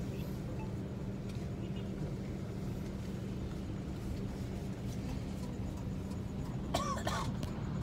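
Intercity bus engine and road rumble heard inside the passenger cabin, steady and low with a constant hum, as the bus moves through traffic. A brief high-pitched sound cuts in about seven seconds in.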